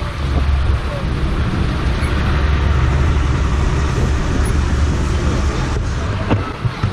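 Steady low engine rumble and road noise of an open-backed passenger truck, heard from the passenger benches in the back as it drives along a street. The noise dips briefly near the end.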